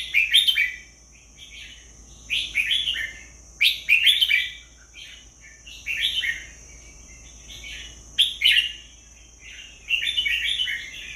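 Red-whiskered bulbul singing: short warbled phrases, repeated every second or two.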